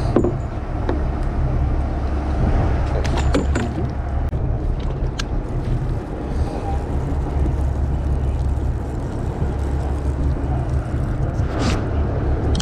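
Steady low rumble of a charter fishing boat's engine, with wind on the microphone and a few short knocks.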